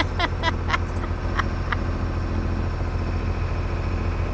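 Sailboat's inboard engine running steadily while motoring under way, a constant low hum.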